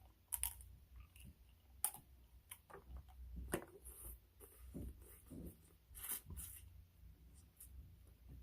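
Snow crab legs being picked apart: irregular sharp clicks and cracks of shell, with soft chewing and mouth sounds between them.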